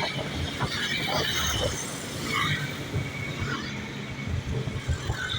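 Road traffic rumbling, with shrill voices shouting and shrieking over it in short bursts.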